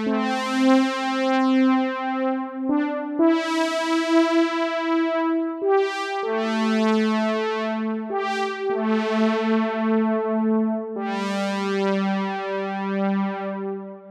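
Synapse Audio Obsession virtual-analog synthesizer plugin, emulating the Oberheim OB-Xa, playing a slow run of held polyphonic chords. Each chord starts bright and mellows as it is held, and a new one comes every two to three seconds.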